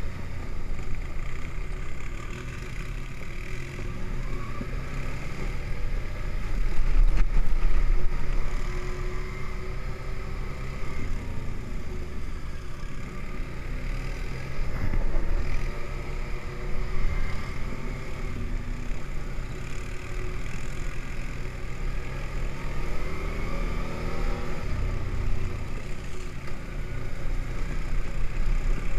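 ATV engine running while being ridden along a snowy trail, its pitch rising and falling with the throttle a couple of times, louder for a moment about seven seconds in.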